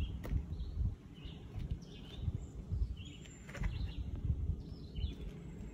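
Small birds chirping in short calls, repeated every second or so, over a low, uneven rumble.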